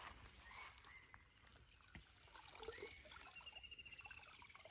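Faint trickling and dripping of water as a cast net is hauled up out of the water by its rope. A faint high-pitched trill rises and then holds through the second half.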